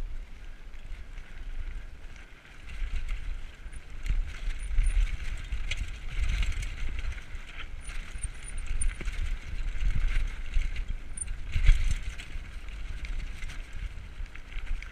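Mountain bike riding fast down a rocky dirt singletrack: tyres rumbling over dirt and stones, with scattered rattles and knocks from the bike, the loudest a hard knock near the end.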